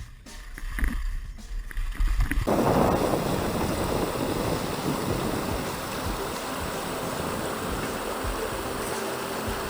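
Low wind buffeting on the microphone, then, with a sudden switch about two and a half seconds in, the steady rushing of flowing river water, which slowly eases.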